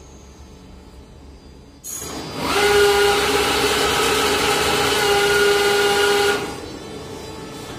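ATM cash dispenser running as it counts out and delivers banknotes. About two seconds in it starts with a sudden onset, then whirs at a steady pitch for about four seconds before stopping.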